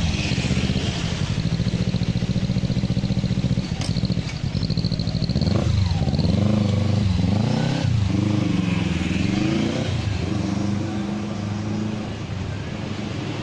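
Motorcycle engine with a turbo whistler fitted in its exhaust, idling and then revved several times about halfway through, with a thin high whistle over the exhaust note.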